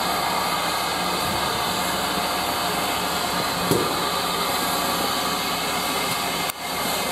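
Steam locomotive standing at a platform, giving off a loud, steady hiss of escaping steam, with one brief knock about halfway through. The hiss drops out for a moment near the end and then resumes.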